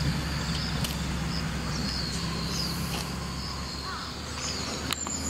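Outdoor roadside ambience: short high chirps from birds or insects repeating every half second or so over a steady low hum, with one sharp click near the end.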